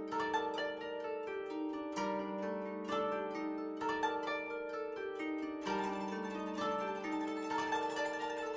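Background music: a gentle plucked-string melody over a low bass note, its phrase repeating about every four seconds.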